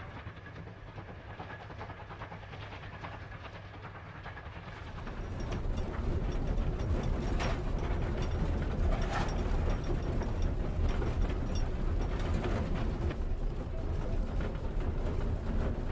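Great Western steam locomotive and coaches running. The first few seconds are quieter; from about five seconds in comes the louder rattle of the cab with frequent clicks and knocks from the rail joints.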